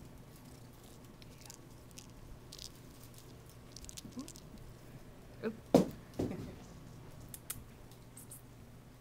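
Kitten's claws scratching and rustling on a plush fabric cat bed as it plays with a hand, over a faint steady hum. A short cluster of louder sounds comes about six seconds in.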